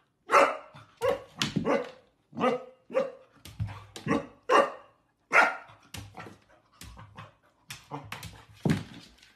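Dog barking over and over, short sharp barks at an uneven pace of about two a second.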